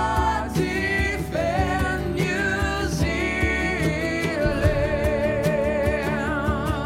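Background song: a singer holding long notes with vibrato over a steady drum beat and bass.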